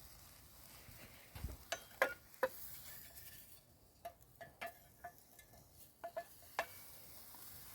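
Quiet, scattered light ticks and clicks, some with a brief metallic ring, from a pan cooking over low campfire embers, over a faint hiss.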